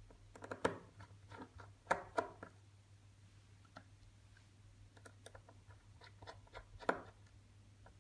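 Small, sharp clicks and taps of a precision screwdriver on the tiny screws and metal cover plate of an iPhone 6S display assembly. The clicks come in a cluster in the first two seconds or so, then a few fainter ticks, and one louder click near the end.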